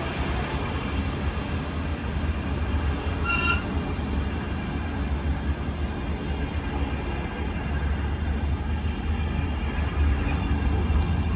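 Container flat wagons of an intermodal freight train rolling past: a steady, loud low rumble of wheels on rail, with one brief high squeal about three seconds in.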